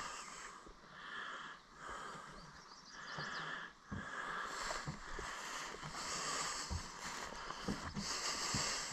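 Rural outdoor ambience: a steady hiss with a few faint bird chirps, and soft footsteps through tall grass in the second half.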